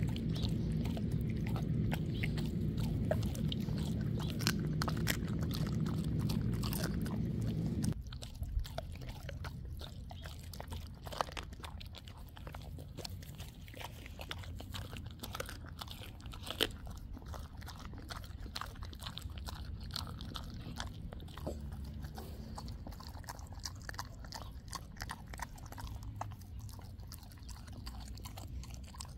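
A dog crunching and chewing a raw chicken quarter, the bone and skin cracking in irregular sharp clicks. A low steady hum underneath stops suddenly about eight seconds in.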